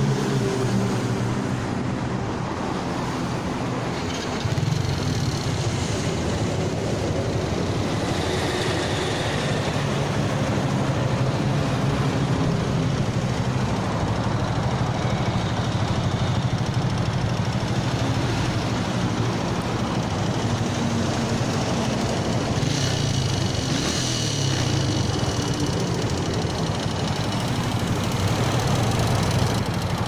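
Modenas underbone motorcycle's single-cylinder engine idling steadily through its stock exhaust, louder from about four seconds in. A rattle runs through the idle: piston slap from a worn engine.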